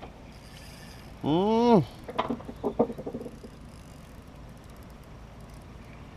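A man's drawn-out wordless whoop, rising then falling in pitch, about a second in: an angler's excited shout while reeling in a hooked fish. A few short sharp sounds follow, over a steady low rumble.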